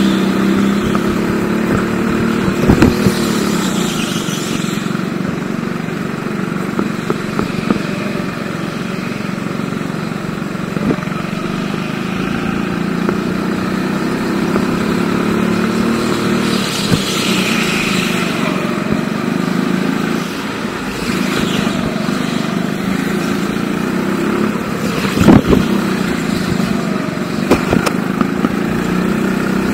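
Hire go-kart engine running on track, its pitch rising and falling as it accelerates and slows through the corners. A couple of sharp knocks come about three seconds in and again near the end.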